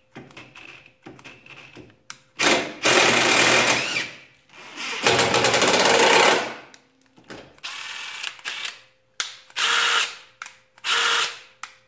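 Compact cordless impact driver hammering on a small bolt in bursts: two long runs of about one and a half to two seconds each, then several short blips near the end.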